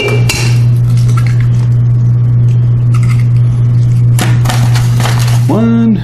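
Eggs cracked against the rim of a stainless steel mixing bowl: sharp taps and clinks near the start and again about four seconds in, over a loud steady low hum. A short tone rises and falls in pitch near the end.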